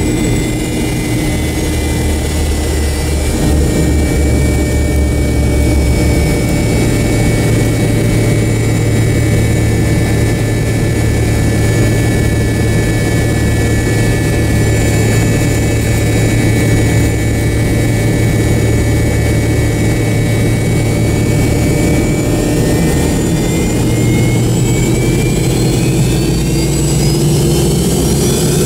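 Pratt & Whitney JT8D-219 turbofan of an MD-88, heard inside the cabin right beside the rear-mounted engine: a steady whine over a deep hum while taxiing. Over the last several seconds its pitch rises as the engine spools up.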